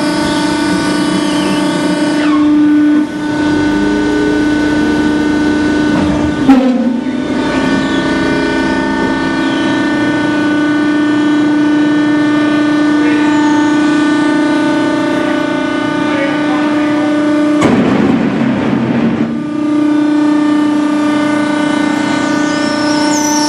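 Maren 203-338-S horizontal baler running its automatic cycle. The hydraulic pump and its 60-horsepower three-phase electric motor give a steady pitched hum. The hum dips briefly just under three seconds in, a sharp clank comes about six and a half seconds in, and a noisy rush lasts about two seconds around eighteen seconds in.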